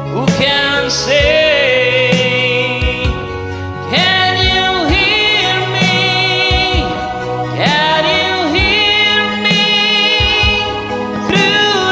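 Music from a slow ballad, with wordless singing and choir-like voices held over sustained backing.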